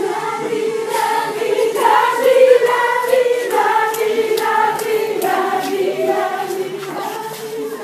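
A group of young voices singing together in unison, holding long notes, with a few sharp knocks among them.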